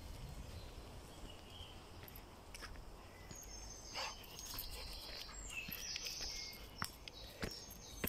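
Footsteps of a person and a dog on a leaf-covered woodland dirt path, with scattered sharp ticks. High bird calls come in around the middle.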